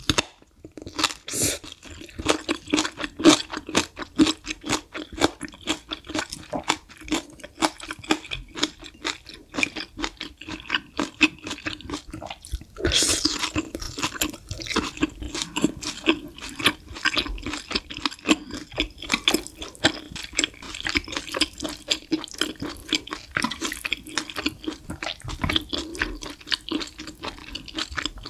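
Close-miked chewing and slurping of saucy Buldak Bokkeum Myeon (spicy fire noodles): quick wet mouth clicks and smacks, with one longer slurp about thirteen seconds in.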